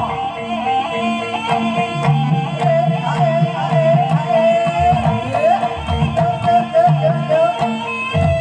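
Javanese traditional music of the kind that accompanies barongan: a wavering, gliding melody line over sustained low tones and repeated drum strokes.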